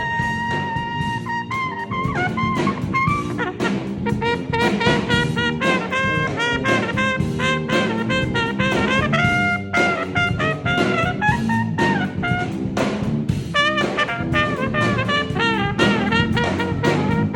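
Small band playing a jazz-funk groove. A brass horn solos in quick runs of notes over a drum kit and lower backing instruments.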